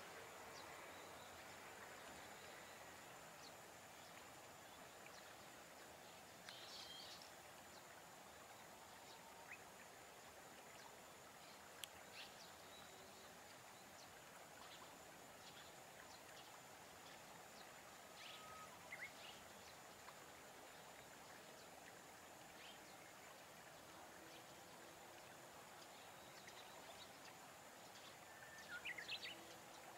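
Near silence: faint field ambience with a few brief, scattered bird chirps, and a short cluster of them near the end.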